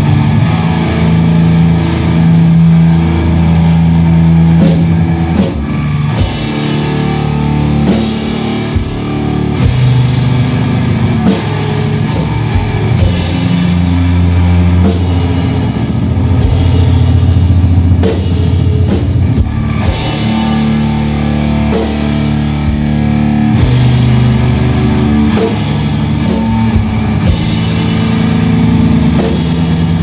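Live doom metal band playing: heavy electric guitar and bass holding long low chords that change every few seconds, with drum kit hits and cymbals.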